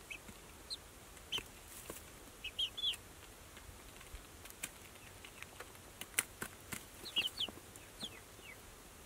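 Young chickens peeping softly in short high chirps, coming singly and in little runs of two or three, with scattered faint clicks in between.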